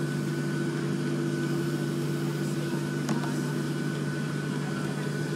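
Steady cabin drone inside a Boeing 737-700 on the ground, with its CFM56 jet engines and air-conditioning running at a constant low setting. Several steady hums sit over an even rush, with no rise in pitch or level.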